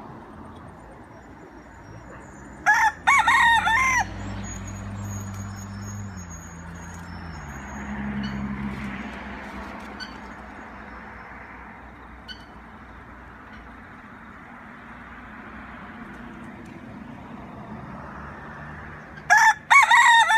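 Rooster crowing twice: a loud cock-a-doodle-doo of several notes about three seconds in, and another starting near the end. Between the crows a low hum swells and fades.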